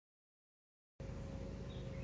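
Dead silence, then outdoor background cuts in about halfway through: a steady low hum, and shortly after a bird starts calling in short repeated chirps, a few a second.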